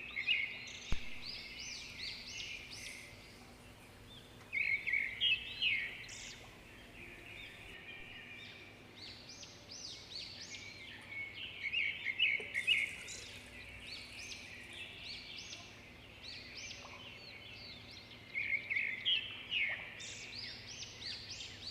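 Small songbirds singing in about four bursts of rapid high chirps and trills, a few seconds apart.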